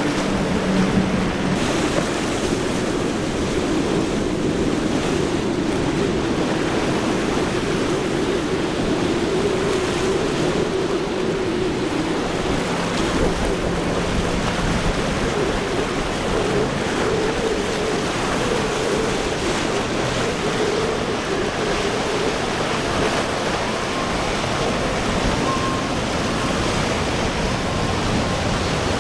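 Steady rush of wind and surf, with the drone of outboard engines on fast-running center-console boats underneath, drifting up and down in pitch as the boats pass.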